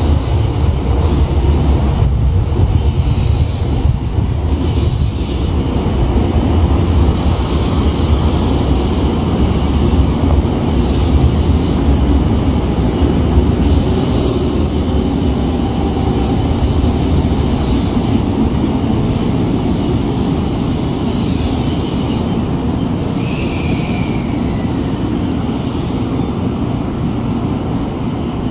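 Electric commuter train running on the station tracks with a steady low rumble that slowly fades. A short high squeal comes about 23 seconds in.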